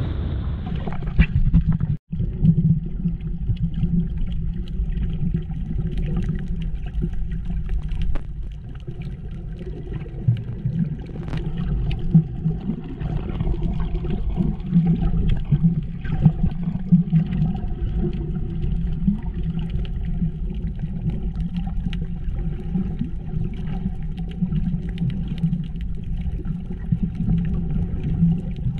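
Underwater sound: a steady, muffled low rumble of moving water with scattered faint clicks and crackles. Before it, a brief stretch of shallow water sloshing, broken off by a sudden cut about two seconds in.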